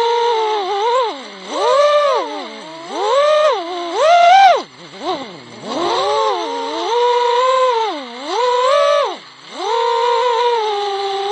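FPV quadcopter's brushless motors and propellers whining, heard through the onboard camera. The pitch rises and falls sharply again and again with the throttle.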